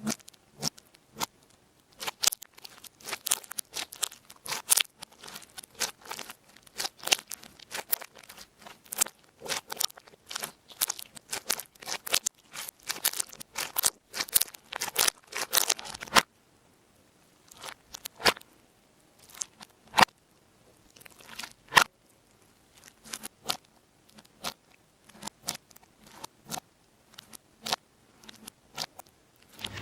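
Crunchy slime being worked by hand, giving a run of sharp crackling pops. The pops are dense at first and thin out to scattered snaps after about sixteen seconds.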